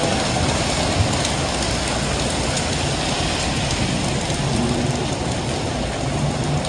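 Heavy rain falling steadily, with a low hum of rush-hour traffic underneath.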